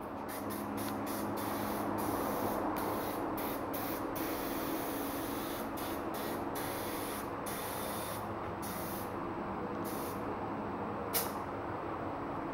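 Compressed air hissing from a shop air hose at a car's wheel, in many short blasts that start and stop every fraction of a second, then a few longer ones and one short louder blast near the end, over a steady low hum.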